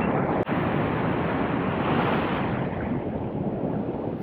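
Ocean surf breaking against a rock ledge and washing across it as a steady rushing wash that swells around the middle, with wind buffeting the microphone.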